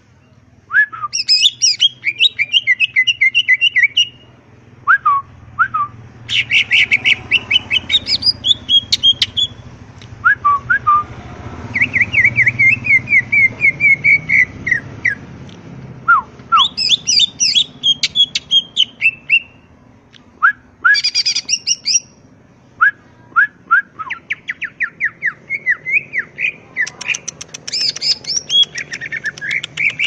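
Male cucak ijo (green leafbird) in full song, in the fast, rattling 'ngentrok' style. It sings phrase after phrase of rapid ticks, chattering trills and short rising-and-falling whistles, with brief pauses between phrases.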